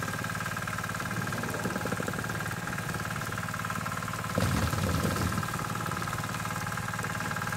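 A fishing boat's engine running steadily with a constant hum, and a louder, low-pitched sound lasting about a second a little over halfway through.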